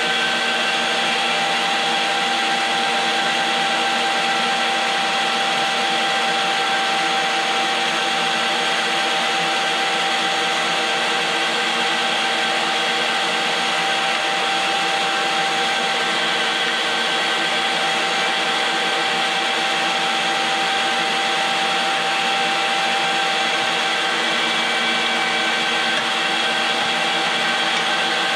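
STX Turboforce electric meat grinder running steadily with one unchanging motor pitch, set up to stuff ground venison into bags.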